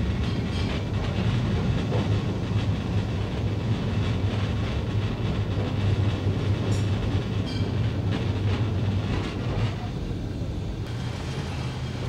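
Electric tram running slowly along street rails laid in a brick-sett road: a steady low rumble with scattered clicks and clatter from the wheels on the track.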